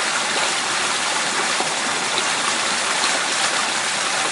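Steady rush of running water in a small stream.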